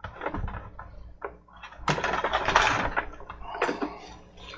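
Clicks, knocks and rustling of tools being handled on a wooden work table, with a louder scraping rustle in the middle.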